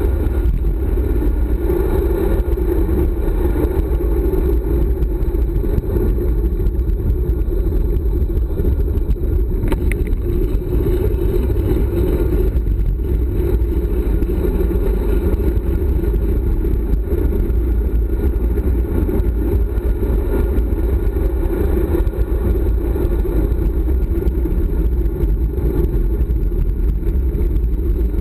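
Wind rushing over a handlebar-mounted GoPro on a road bike descending at speed: a steady, loud, low rushing noise.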